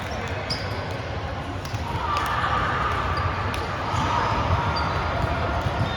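Volleyball rally sounds in a gym: several sharp knocks of the ball being struck and hitting the floor, with a few short high squeaks, over steady hall noise.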